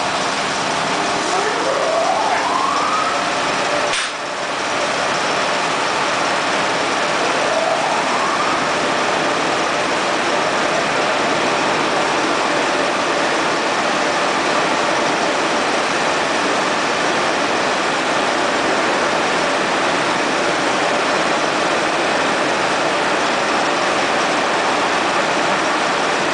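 TEPO-AUTO tunnel car wash machine running: steady hiss of water spray and spinning brushes. A short rising whine sounds twice, about a second in and about seven seconds in, and a single click comes about four seconds in.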